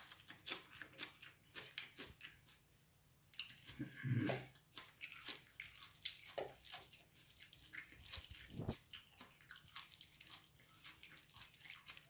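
Faint wet, sticky clicks and squelches of fingers mashing puttu into fish curry on a plate, with a brief hum of voice about four seconds in and a single low knock near the end.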